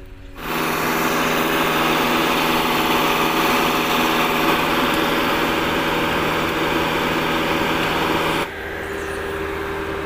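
Komatsu PC58 mini excavator's diesel engine running loud and steady at high revs; about eight and a half seconds in it drops abruptly to a quieter, steadier running.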